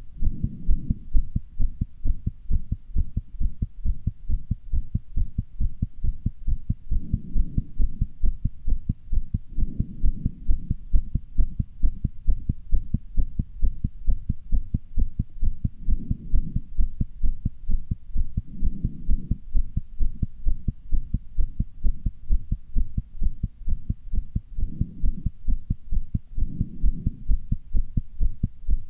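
A person's heart beating fast, a steady, rapid run of low thumps as the heart valves open and close quickly.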